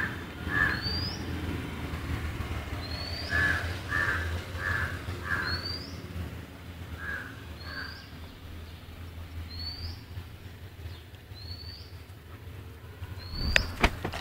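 Birds calling outdoors: runs of three or four short harsh calls in the first half, over a high, short rising chirp that repeats about every second and a half. A low steady hum lies underneath, and a few sharp knocks come near the end.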